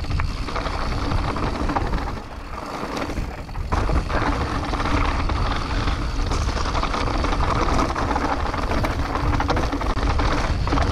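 Mountain bike riding down rocky dirt singletrack: steady wind rush on the camera's microphone over the rumble and rattle of knobby tyres on loose stones, easing briefly about two seconds in.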